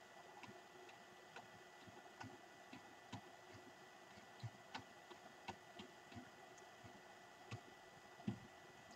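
Faint, irregular ticks from a computer mouse as its scroll wheel is turned, about two or three a second, over near silence.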